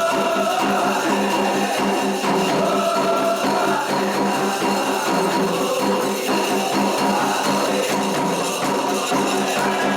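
Candomblé ritual music with dense, continuous percussion and shaker rattles.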